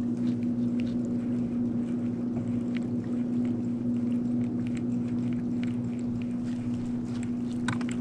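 Bass boat's motor running with a steady, even hum, with a few faint clicks over it.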